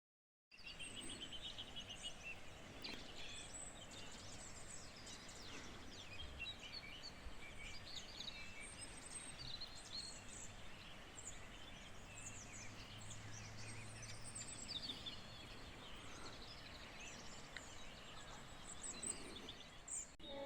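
Several small birds chirping and singing in quick, scattered calls over a faint outdoor background hiss.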